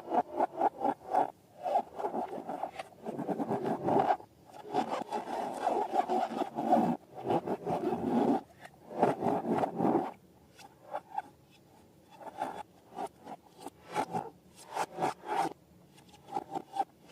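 Slime being squeezed and stretched by hand, a rapid crackling and squelching that comes in spells and thins to scattered clicks in the latter part.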